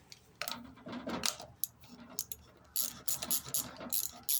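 Metal clinks and clicks of a 7/16 socket and ratchet being fitted onto and turning the carburetor mounting nuts, coming in irregular bursts that get denser in the second half.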